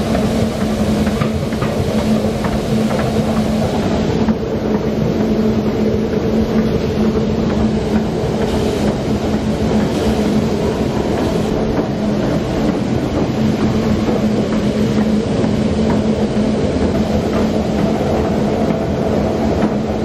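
Wheat pouring from a gravity grain wagon's chute through a steel grate into a grain pit, over the steady hum of farm machinery running.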